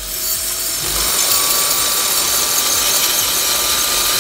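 Cordless drill spinning a steel leather hole punch while its edge is held against a fine-grit diamond sharpening plate: a steady grinding hiss over a faint motor whine, louder from about a second in. It is the sound of the dull punch's cutting edge being honed.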